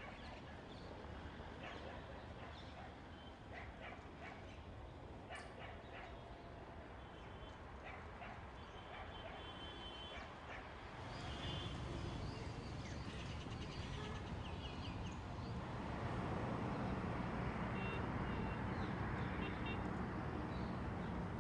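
Outdoor ambience: a steady rumble of distant traffic that gets louder about halfway through, with short bird chirps scattered across it.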